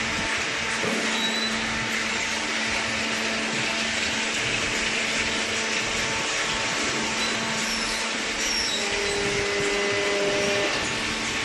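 Hydraulic baler running, its electric motor and pump giving a steady mechanical whirr with a constant low hum.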